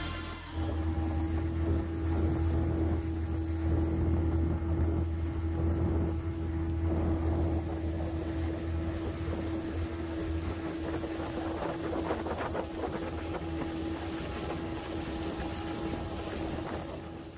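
Motorboat engine running steadily under way, a constant drone, with wind and water rushing past the boat.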